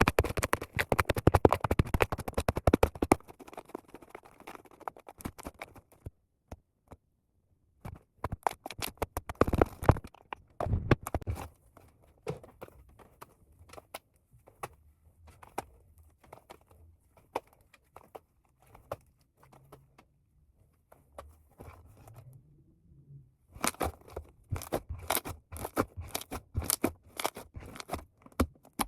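Fluffy slime made with shaving foam, squeezed and stretched by hand, giving crunchy crackling pops. They come in dense bursts near the start, about a third of the way in and over the last few seconds, with sparse pops between.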